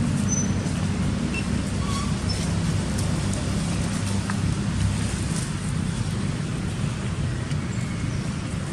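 A steady low rumble of outdoor background noise, with a few faint, brief high chirps.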